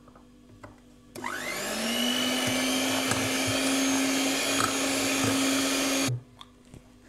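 Electric hand mixer switched on about a second in, its motor whine rising as it spins up, then running steadily for about five seconds as its wire beaters whip ground sugar into a cream cheese and whipping cream mixture, before stopping abruptly.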